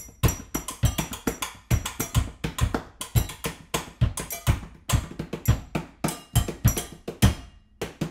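Layered kitchen-percussion groove: upturned bowls struck by hand give deep thumps, with sharper clicks and taps from other kitchen objects woven between them in a steady, busy rhythm. The groove drops out briefly near the end.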